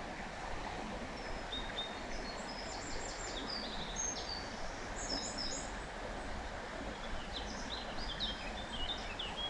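Steady rush of a small forest stream with a songbird singing over it. The bird sings phrases of short, high chirping notes, from a couple of seconds in to about the middle and again near the end.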